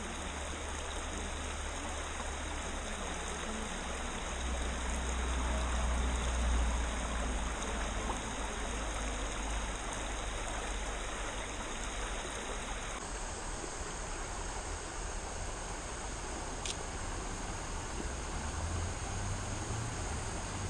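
Shallow mountain stream running over a stony bed: a steady wash of flowing water, with a low rumble underneath.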